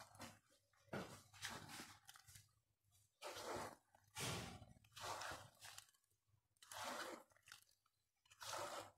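A spatula stirs diced guava pieces coated in spices in a glass bowl. Each stroke makes a separate faint sound, about eight strokes at uneven intervals.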